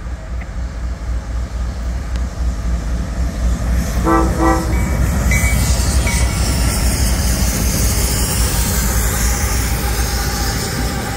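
CSX freight train with several diesel locomotives approaching and passing close by, its engines and wheels rumbling louder as it nears. About four seconds in the locomotive horn sounds two short blasts.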